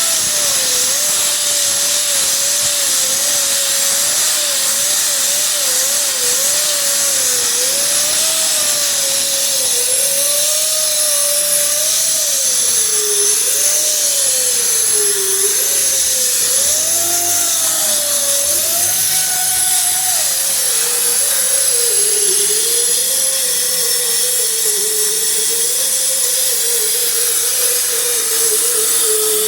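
Power sander with a coarse 36-grit hook-and-loop disc grinding paint, primer and body filler off a car panel. Its motor runs loud and continuous with a high hiss, its whine dipping and rising as the disc is pressed harder and eased off.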